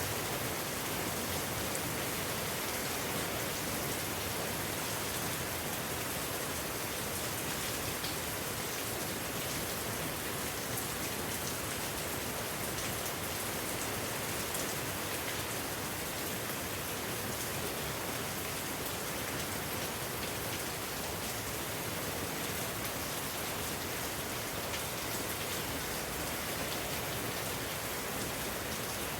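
Heavy, steady rain falling and pattering on surfaces, a constant hiss with fine scattered drop ticks, brought by a typhoon.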